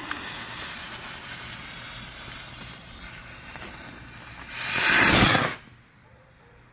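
Showtime Screamin' Eagles firework rocket: the lit fuse hisses steadily for about four and a half seconds, then the rocket launches with a loud rushing hiss lasting about a second that quickly fades away.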